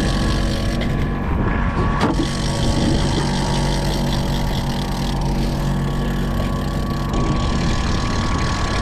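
Power boat's engine running steadily at trolling speed, with a thin steady whine over it and a couple of light knocks about two seconds in.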